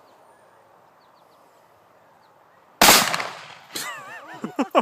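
.500 S&W Magnum revolver fired once, about three seconds in: a single sharp, very loud blast with a ringing tail. Both cartridges in the cylinder went off at the same moment (a chain fire), heard as one shot. Voices exclaim and laugh right after.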